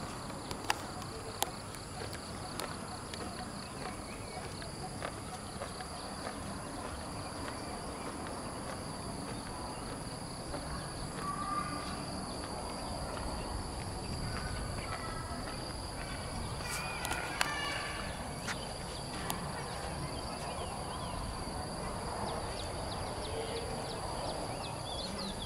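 Steady high-pitched insect drone with footsteps and faint, distant voices of other people; a couple of sharp clicks sound about a second in.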